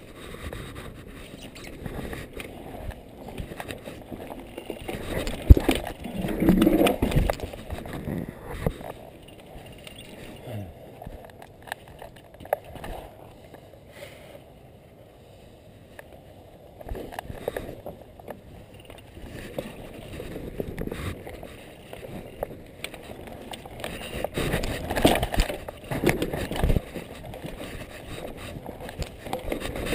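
Mountain bike riding over a dirt forest trail: tyre noise on the soil with knocks and rattles from the bike over bumps and roots. It goes quieter for a few seconds mid-way while the bike is stopped, and is loudest about six seconds in and again near the end.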